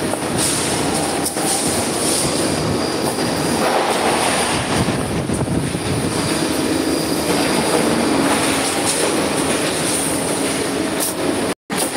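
Copper tube cutting and end-forming machine running, a copper tube feeding through its roller straightener: a loud, steady mechanical running noise. It cuts out for a moment near the end.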